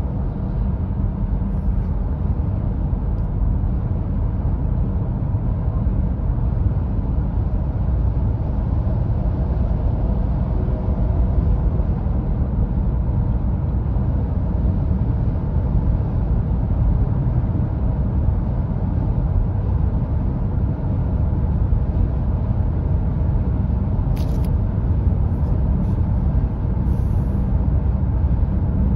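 Steady road and wind noise inside the cabin of a Hyundai Tucson full hybrid cruising at about 130 km/h, with a low rumble strongest and no change in pace. The wind noise at this speed is very strong.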